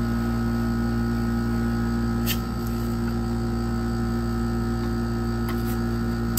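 Steady hum of several fixed tones from the ice cream roll machine's refrigerated cold plate. A few short ticks of the metal spatula on the steel plate come about two and a half seconds in and again about five and a half seconds in.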